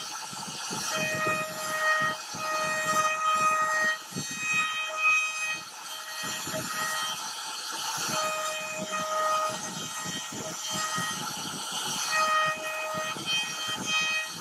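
CNC router carving wood with a router bit: the crackle of the cut runs under a steady machine whine that switches on and off every second or two as the machine moves.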